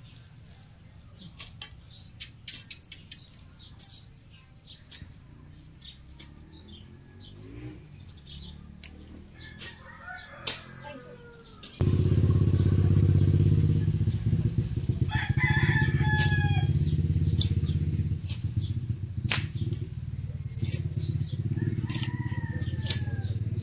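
Grass being cut by hand in sharp strokes, with a rooster crowing a few times. About halfway through, a steady low rumble starts suddenly and runs on as the loudest sound.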